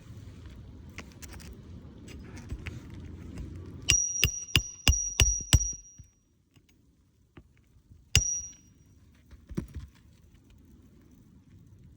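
Hammer nailing a replacement roof shingle: six quick blows about four seconds in, then one more a couple of seconds later, each with a short metallic ring.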